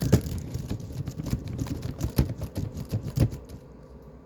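Fast typing on a laptop keyboard: a quick run of key clicks that thins out and stops about three seconds in.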